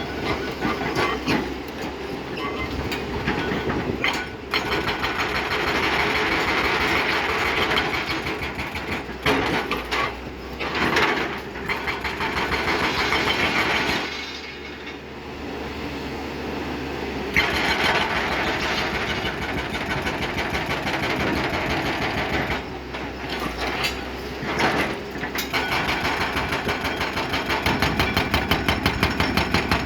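Excavator-mounted hydraulic breaker hammering in long runs of rapid blows over the machine's running engine. The hammering drops off briefly about halfway through, then starts again.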